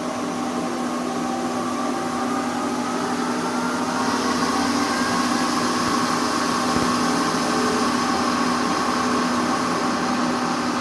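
A machine tool running steadily: the motor and spindle hum on several constant tones under an even mechanical noise, which gets slightly louder about four seconds in.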